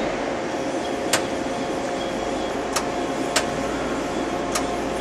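Okuma LNC8 Cadet CNC lathe running with a steady, quiet hum as its axis moves, while the way cover clicks lightly four times.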